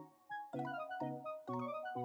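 Background music: an upbeat tune of short, quickly fading pitched notes over a bass line, with a brief gap just after the start.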